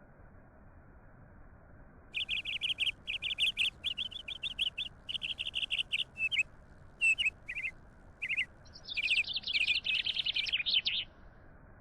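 A songbird singing in quick bursts of short, high chirps, starting about two seconds in, with a faster, denser trill near the end. A faint steady hiss runs underneath.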